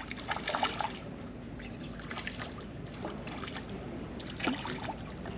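Small waves lapping and trickling against harbour rocks in irregular splashes, over a steady low rumble.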